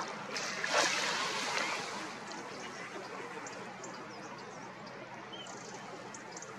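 Steady hiss of lapping water, with a louder rush of noise about a second in that fades out by about two seconds.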